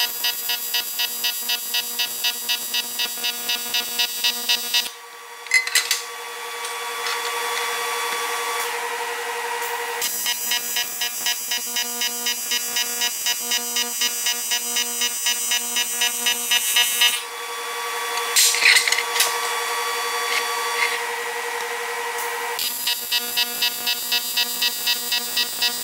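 TIG welding arc on aluminium, a steady buzz pulsing about two to three times a second. The arc cuts out about five seconds in and again about seventeen seconds in, striking up again about five seconds later each time.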